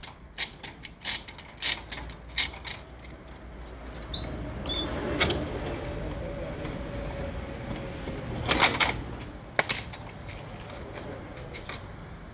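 Ratchet clicks of a lever chain hoist (come-along) being pumped, about two a second, tightening a chain that pulls out the damaged rear of the car; the clicking stops about two and a half seconds in. A long steady creak follows, then a few sharp metal knocks around nine seconds in.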